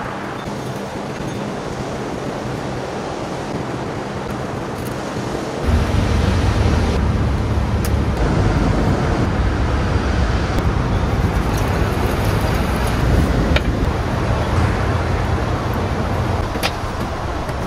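Steady road-traffic noise mixed with ocean surf. About six seconds in, a deep engine rumble from a large vehicle comes in suddenly and runs for roughly ten seconds before easing off.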